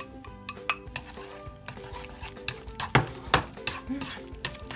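Spaghetti being stirred and tossed in a frying pan as egg-yolk sauce is mixed into it with cured pork, the utensil clicking and knocking against the pan, loudest twice about three seconds in.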